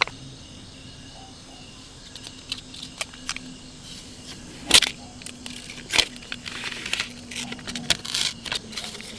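Irregular clicks, taps and light clatter of small hard objects being handled, with a sharper knock about five seconds in and another about a second later. A faint steady outdoor background with insects runs underneath.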